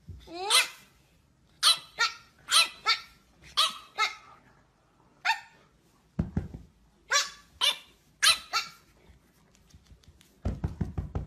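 A dog barking repeatedly in short, sharp barks, each dropping a little in pitch, starting with a rising yelp. A low rumble comes in briefly about six seconds in and again near the end.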